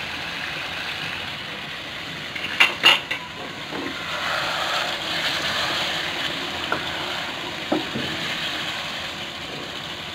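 Chicken masala gravy simmering and sizzling in a nonstick wok, then stirred with a wooden spoon through the thick gravy from about four seconds in. A cluster of sharp knocks comes about three seconds in, and two lighter knocks follow later.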